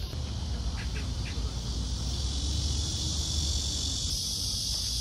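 Steady high-pitched drone of insects, louder from about four seconds in, over a low rumble. A few short chirps sound about a second in.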